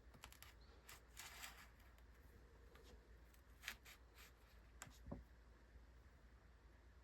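Faint rustling and a few light clicks from hands moving onion seedlings and potting soil between containers, with one longer rustle about a second in.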